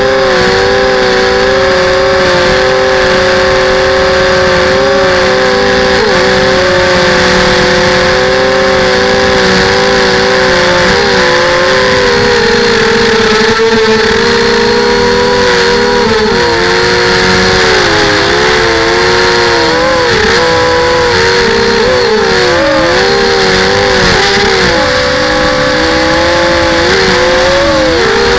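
FPV drone's electric motors and propellers whining steadily, close up through its onboard camera. The pitch wavers up and down with the throttle, more so in the second half.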